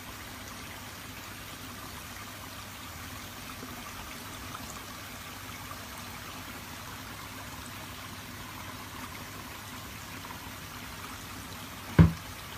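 Steady sound of running, trickling water at a koi pond. Near the end comes a single sharp thump.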